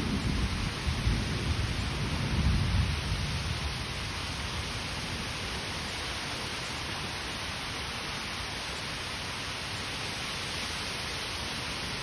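Heavy rain pouring steadily with a constant hiss. In the first few seconds a low rumble of thunder rolls and dies away.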